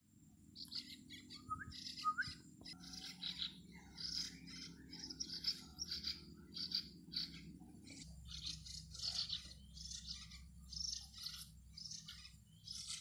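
A pair of nestling bulbuls (merbah) begging with short, high chirps, repeated two or three times a second as they gape to be hand-fed.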